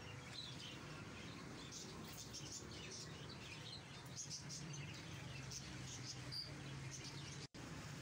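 Many caged birds chirping, with short high chirps scattered throughout over a steady low hum of street noise. The sound cuts out for an instant near the end.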